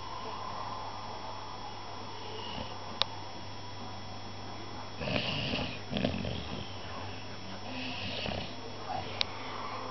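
Sleeping puppy snoring, with a run of louder snores about five to six and a half seconds in and another around eight seconds. Two sharp clicks cut in, about three seconds in and near the end.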